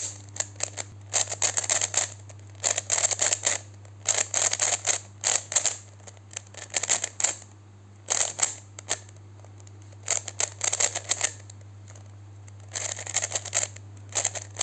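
Plastic 3x3 speed cube being turned by hand: quick runs of clicking layer turns in bursts of about a second, with short pauses between and a longer pause near the end.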